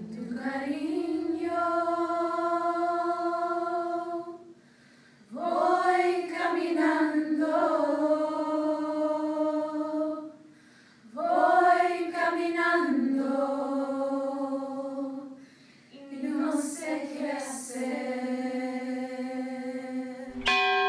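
Group of young women singing a cappella in four slow phrases of long held notes, with short breaks between them. Right at the end a large bronze bell is struck and rings on.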